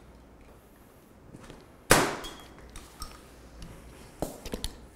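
Plastic packing strap on a shipping carton snapping sharply as it is cut through with a blade, about two seconds in, followed near the end by a few lighter clicks and knocks as the straps are handled.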